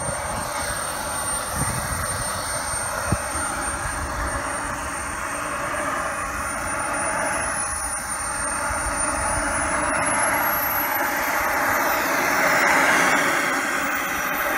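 Miniature turbine engine of a large RC scale Super Galeb G4 jet running as the model taxis, a steady rush with a thin high whine that climbs in pitch over the second half as the engine spools up. A single click about three seconds in.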